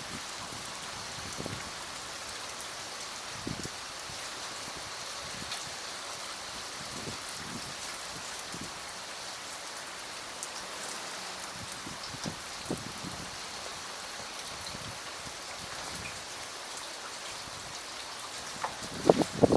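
Rain falling steadily, with scattered louder drops striking close by and a cluster of heavier drop hits near the end.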